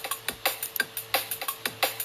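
Electronic drum loop playing back: a fast, even pattern of sharp, clicky percussion hits, about five or six a second, over a faint steady tone.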